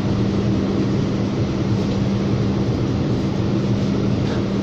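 Inside a Bombardier Flexity streetcar: steady cabin noise, an even drone with a constant low hum.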